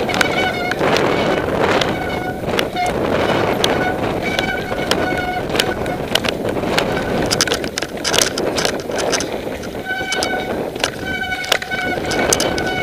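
Mountain bike descending a rocky trail: wind rushing over the camera microphone, with constant rattling and sharp knocks as the tyres, chain and frame hit the stones, and a high buzzing that comes and goes.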